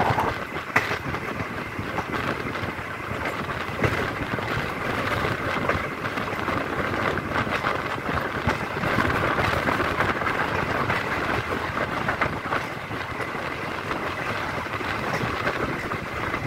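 Passenger train running, heard from a coach window: a steady rumble and rush of wind and wheels on rails, with scattered clicks from the wheels over the track.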